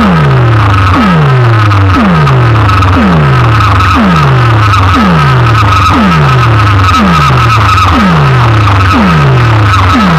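Big DJ sound-box speaker rigs blasting a competition track at full volume: a deep bass note drops in pitch about once a second, over a steady high-pitched tone.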